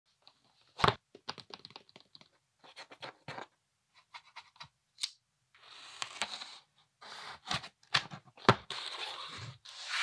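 A cardboard shipping box being handled and unsealed: a sharp knock near the start and scattered clicks and scratches, then clear packing tape peeled off the box in several rasping pulls lasting up to about a second each.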